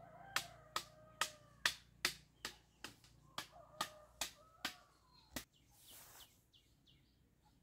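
A sharp knock or clack repeating evenly about two and a half times a second, with birds calling underneath; the knocking stops about five and a half seconds in.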